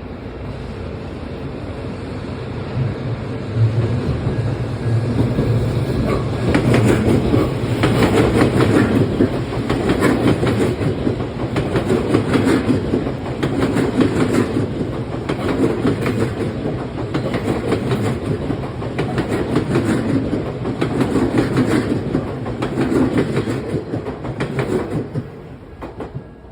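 Odakyu Line electric train passing over a level crossing, its wheels clacking in a regular rhythm over the rail joints. It builds about three seconds in, stays loud for most of the passage, and drops away near the end.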